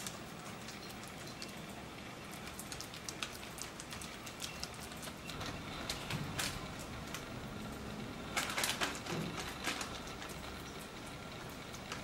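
Hands pressing and shaping raw minced-meat cutlets on a parchment-lined baking tray: scattered small crackles and clicks of the parchment paper and the handled meat, with a denser run of them a little past the middle.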